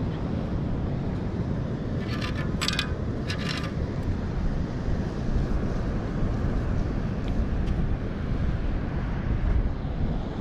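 Two short bursts of metallic rattling, about two and three and a half seconds in, as sand is shaken through a perforated metal sand scoop to sift out a find. Steady wind noise on the microphone throughout.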